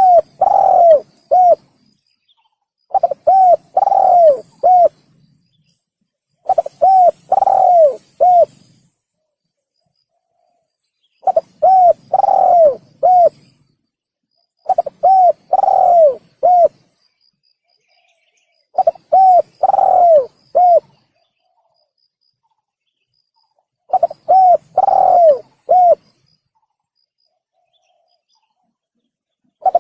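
Male spotted dove (tekukur) cooing its song: about seven short phrases of four or five coos each, every three to five seconds, each with a longer note that falls in pitch in the middle. The gaps between phrases are completely silent, as in an edited lure-call recording.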